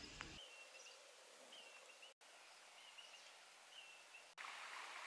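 Near silence: faint outdoor ambience with a few short, faint high bird chirps about once a second.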